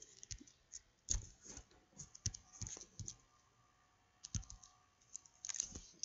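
Faint, scattered clicks and taps of a computer keyboard and mouse, a few at a time, with a pause of about a second a little past the middle.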